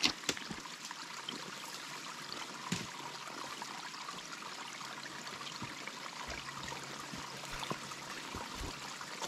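Steady rush of a flowing creek, with a few sharp clicks at the start and again about three seconds in.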